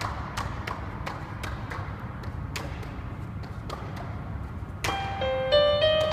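Plastic juggling clubs being caught in the hands, a quick even series of sharp slaps about four or five a second as three clubs are juggled. Piano music comes in near the end.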